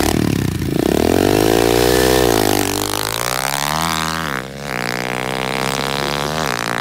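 Small 110cc pit bike engine revving hard as the bike pulls away. Its pitch climbs, drops back sharply at each gear change, then climbs again.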